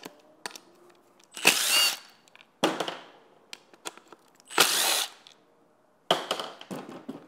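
Milwaukee cordless impact driver with a Torx T30 bit spinning out bracket screws in two short runs, each under a second, about three seconds apart. A sharp knock follows each run.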